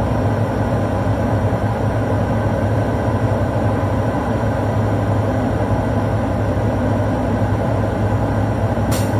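Diesel truck engine held at a steady fast idle of about 1300 RPM, running the air compressor to build brake air pressure toward 120 psi. A short click near the end.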